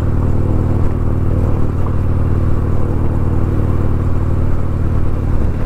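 Harley-Davidson Street Glide's Milwaukee-Eight V-twin running steadily while riding, with some wind noise but no popping or crackling on the mic.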